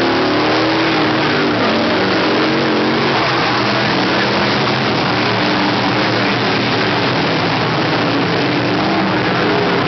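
A field of dirt-track budget sportsman modified race cars running hard around the oval, a loud steady mix of overlapping engine notes.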